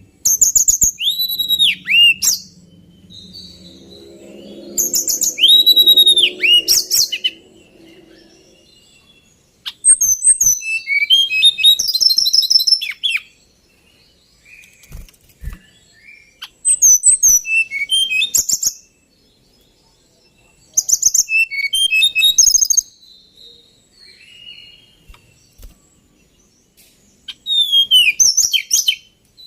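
A male tledekan gunung singing: about six loud, rapid whistled phrases of roughly two seconds each, full of quick up-and-down sweeps, with softer calls in the pauses between them.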